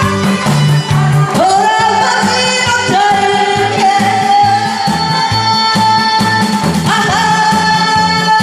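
A woman singing into a microphone over a loud backing track with a steady bass beat, holding long notes with a wavering pitch; new phrases begin about a second and a half in, around three seconds in and near seven seconds.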